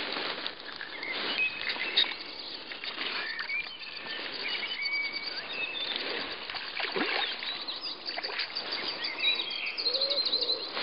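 Several small birds singing and chirping in short repeated phrases, over a steady outdoor noise background.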